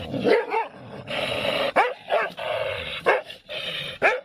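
A dog barking several times in short, separate barks, with a steady hiss between them.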